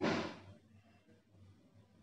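Hot oil sizzling around masala vadai frying in a kadai: one short burst of sizzle that fades within about half a second.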